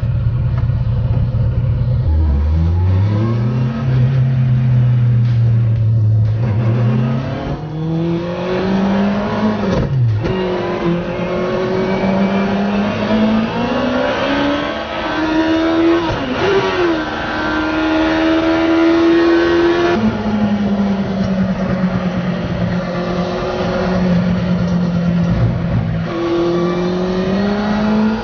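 Yamaha R1 motorcycle four-cylinder engine in a Z Cars Mini, heard from inside the car, accelerating hard up through the gears. Its pitch climbs steadily and falls sharply at each upshift, about five times, with a sudden dip and recovery about ten seconds in.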